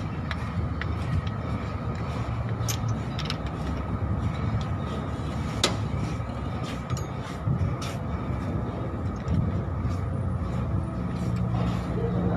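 Steady low hum of a running engine or machine, with scattered light metallic clicks as a timing chain and its sprockets are handled by hand.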